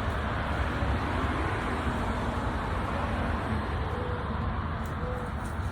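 Steady outdoor background noise: a low rumble with a hiss over it, even throughout. A few faint, short, low notes come in its last couple of seconds.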